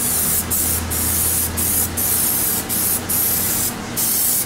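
PlastiDip aerosol spray can hissing in a string of spray bursts, each cut off briefly between passes.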